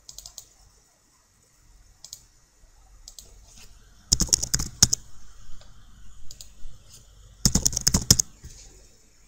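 Typing on a computer keyboard in two quick runs of keystrokes about three seconds apart, with a few single clicks before them.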